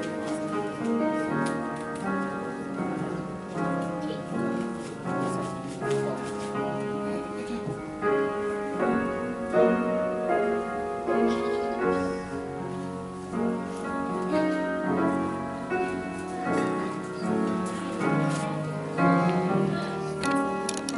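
Piano music playing, a series of chords and melody notes changing about every half second to a second.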